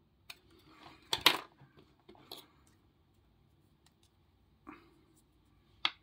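Handling noise of lock-picking tools at a brass padlock held in a vise: a handful of small metal clicks and clacks. The loudest cluster comes about a second in, and a sharp click comes near the end.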